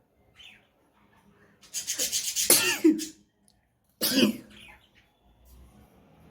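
A woman's forced, sneeze-like bursts of breath. A longer rattling one comes about two seconds in, ending in a falling voiced sound. A short, sharp one starts suddenly about four seconds in.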